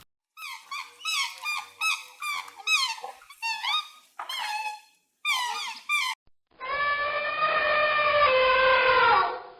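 An animal making a quick series of short, squeaky calls that rise and fall in pitch, about three a second, for about six seconds. Then a long steady tone with several overtones, lasting about three seconds and sliding lower near its end.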